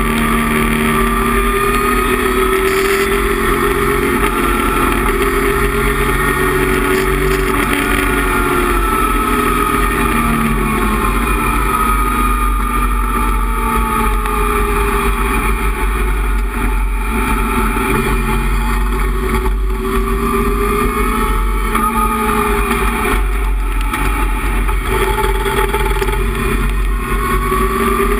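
Datsun 260Z race car's 2.6-litre inline-six engine, heard from inside the cabin while lapping a circuit. The engine note rises and falls in pitch as the driver accelerates and lifts through the corners.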